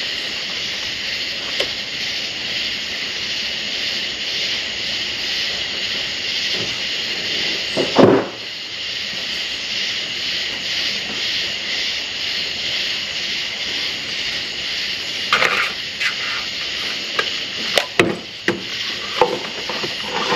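Clunks and knocks of the truck's mechanical cooling fan and metal engine-bay parts being handled and fitted back onto the front of the engine. There is one heavy thud about eight seconds in, then a run of short, sharp knocks near the end, over a steady high hiss.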